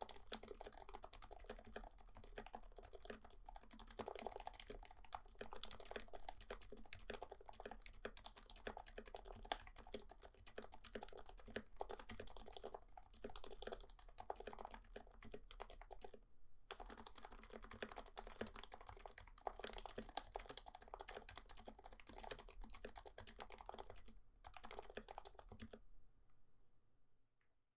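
Steady, fast typing on a Happy Hacking Keyboard Professional 2 with lubed 45 g Topre switches, silencing rings and case foam: a dense run of keystrokes. It breaks off briefly about 16 seconds in and again about 24 seconds in, then stops near the end.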